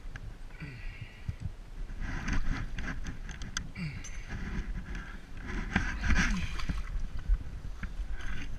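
Water sloshing and splashing around a swimmer in a neoprene wetsuit moving through a sandstone pothole, with scattered knocks and scrapes of gloved hands against the rock wall.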